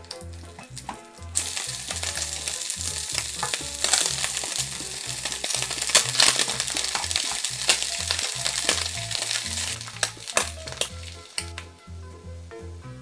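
Slices of canned luncheon meat sizzling in hot oil in a frying pan. The sizzle starts about a second in and dies away near the end, with sharp clicks of a spatula and chopsticks against the pan.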